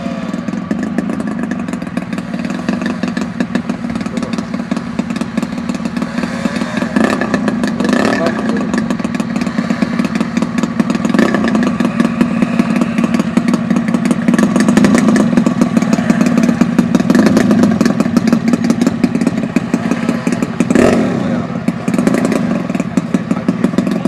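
RC model airplane engine running steadily at high speed, growing louder through the middle and easing off near the end.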